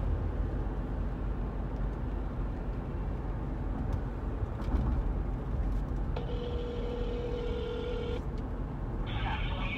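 Steady low road and engine rumble inside a moving car's cabin. About six seconds in, a phone on speakerphone plays a single two-second ringback tone of the outgoing call, and a voice on the line starts near the end.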